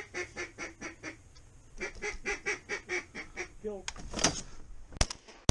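Duck call blown in quick runs of quacks, about five a second, with a longer, louder call about four seconds in. Two shotgun shots half a second apart close it out.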